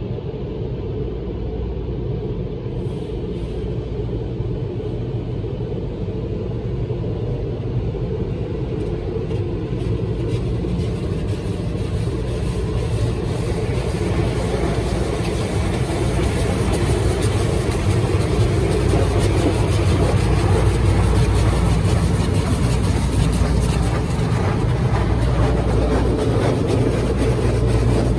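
Automatic tunnel car wash heard from inside the car: a steady low rumble of the machinery, with spinning brushes and water spray hissing and slapping against the body and windshield, getting louder about halfway through as the brushes and foam reach the glass.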